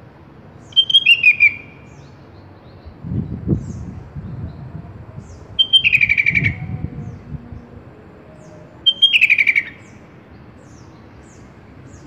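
Sooty-headed bulbul (kutilang) singing: three bright phrases about four seconds apart, each a quick run of notes falling in pitch, over a steady background hiss.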